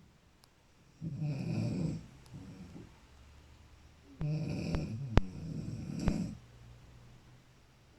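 Snoring: one snore about a second in, then a longer one about four seconds in with a few sharp clicks during it.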